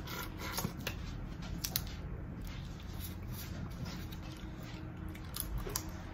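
Eating crab and shrimp: scattered small clicks and crackles of shells being cracked and picked apart by hand, over a soft rustle.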